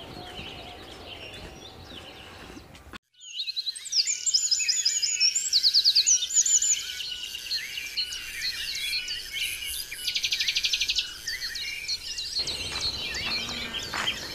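Many birds chirping, trilling and whistling together in a dense chorus. It comes in suddenly after a brief gap about three seconds in, with a run of fast repeated notes around ten seconds in.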